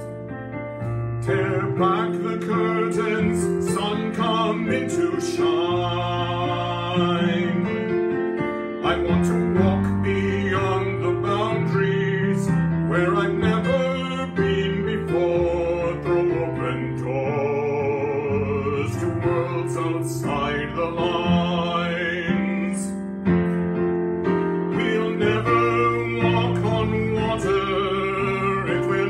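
A woman and a man singing a hymn together, with vibrato, to her own accompaniment of sustained chords on a digital piano.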